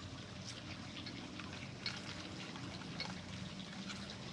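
Soil and small stones being pushed around by hand while a succulent is planted: light scattered crackles and clicks, with a faint steady low hum underneath.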